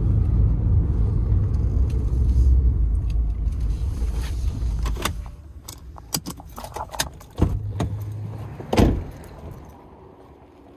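Pickup truck cab noise, a low steady engine and road rumble, which stops about halfway through as the truck is parked and switched off. Then come clicks and rattles of a seatbelt being unbuckled and keys being handled, and a loud thud of the door shutting near the end.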